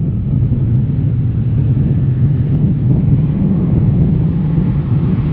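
Jet engines of a Boeing 757 freighter running with a steady, deep rumble and a hiss that grows slightly near the end.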